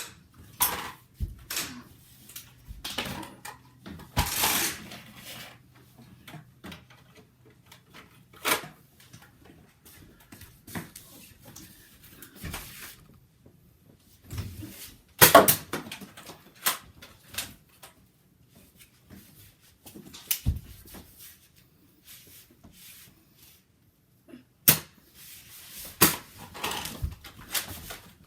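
Scattered knocks, clicks and rustles of people moving about a small room and handling things, with quiet gaps between. Two sharp snaps, about 15 and 25 seconds in, are the loudest.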